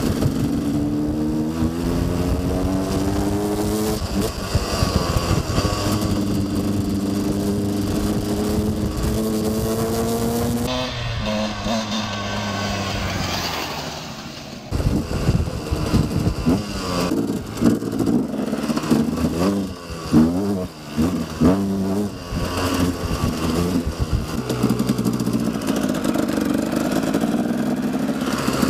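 Dirt bike engine accelerating on a trail, its pitch climbing in each gear and dropping at each upshift, several times over. In the second half the revs rise and fall quickly as the throttle is blipped and rolled on and off.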